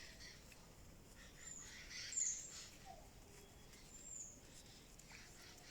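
Small birds chirping in the background: a few short, high calls a second or two apart, the loudest about two seconds in, over a faint background hiss.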